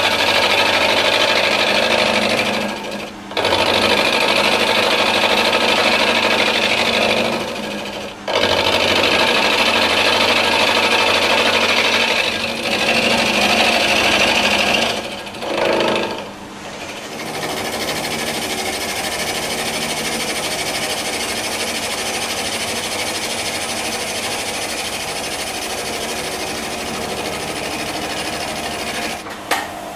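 Milling machine cutting cast iron with a roughing end mill: a loud, harsh grinding chatter in runs broken by short gaps. About halfway through it gives way to a quieter, steady cut as a larger cutter takes the fine clean-up pass.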